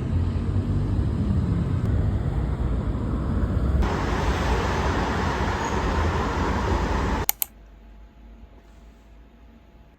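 Steady low rumble and road noise of a vehicle in motion, getting louder and hissier about four seconds in, then cutting off abruptly after about seven seconds.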